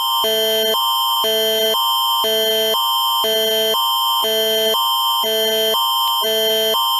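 Canadian Alerting Attention Signal of the Alert Ready system: two chords alternating about every half second, a higher pair of tones and a lower pair, over a steady high tone. It is the attention signal that opens a Canadian emergency alert broadcast.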